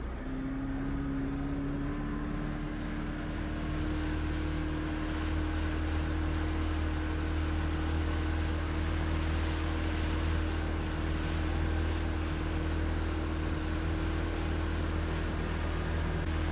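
Motorboat engine running under way, its pitch climbing a little over the first few seconds and then holding steady, with a steady rush of wind and water over it.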